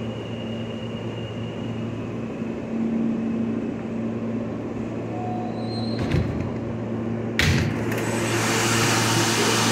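R160 subway car standing in a station with a steady electrical hum, then two knocks about six and seven and a half seconds in as its doors open, after which louder platform noise comes in.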